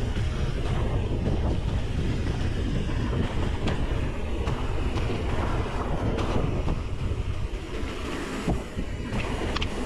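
Mountain bike rolling fast over a dirt trail: a steady rumble of tyres on dirt and rattling of the bike, with wind on the microphone and a few sharp clicks near the end.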